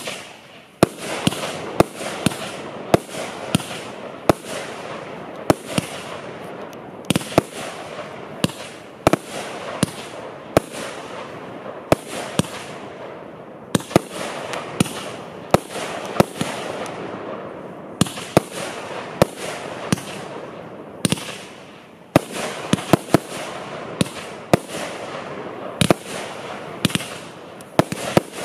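Freestyle 50/50 multi-shot consumer firework battery firing shot after shot: sharp bangs about one or two a second over a continuous crackling of bursting stars, with a couple of brief lulls.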